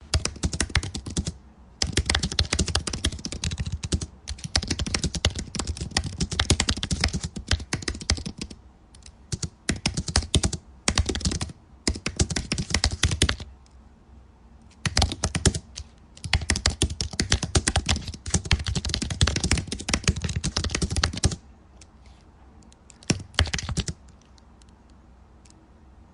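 Rapid typing on a keyboard, in runs of several seconds broken by short pauses, thinning to a few scattered key presses near the end.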